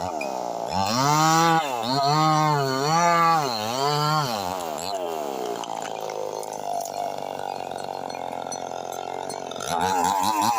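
Chainsaw engine revved up and down about once a second, four times, then dropping back to a lower steady idle for several seconds before revving again near the end.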